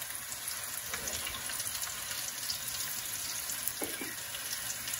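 Breadcrumb-coated cauliflower pieces frying in shallow olive oil over medium-high heat: a steady sizzle with small scattered crackles.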